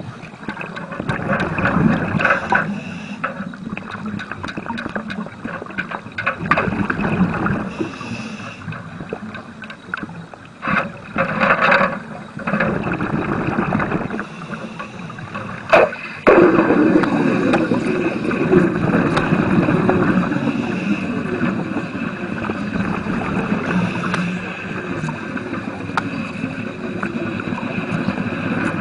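Underwater bubbling and gurgling around a diver doing wet arc welding: uneven and broken at first, then suddenly louder and steady from a little past halfway, while the welding arc burns.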